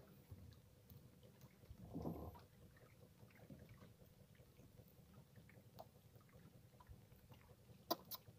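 Near silence, broken by faint knocks and rustles of a fishing line being handled over a wooden boat's gunwale: a soft rustle about two seconds in and two short sharp clicks near the end.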